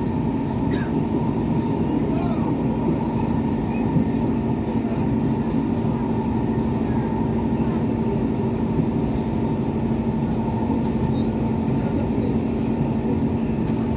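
Running noise inside an SMRT C651 metro car travelling at steady speed: a constant rumble of wheels on rail with a steady hum, and a few faint clicks.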